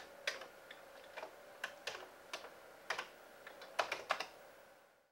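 Keys clacking on a breadbin Commodore 64 keyboard as a command is typed, about a dozen irregular keystrokes. Under them runs a faint steady hum from the machine's added cooling fan, which makes it noticeably more noisy. The sound fades out near the end.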